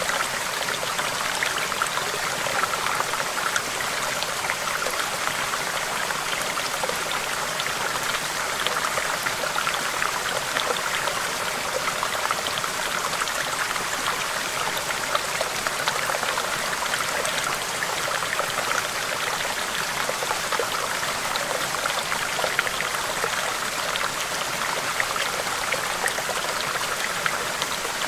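Shallow stream babbling over rocks: a steady rush of flowing water, full of small splashes and trickles.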